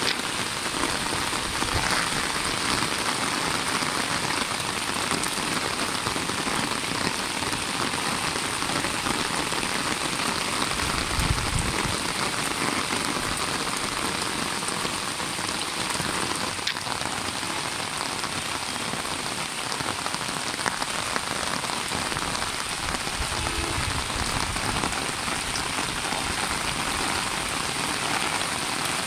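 Steady rain falling on a rooftop garden, on the leaves of potted plants and the wet roof floor.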